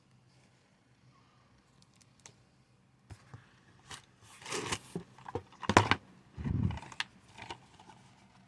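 Rustling, scraping and clicking of items being taken out of a package and handled, starting about four seconds in, with a dull thump at about six and a half seconds.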